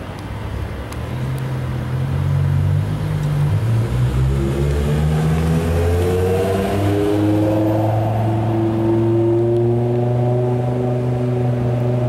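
Car engine pulling away under acceleration: a low note for the first few seconds, then the pitch climbs over several seconds and holds at a steady higher note.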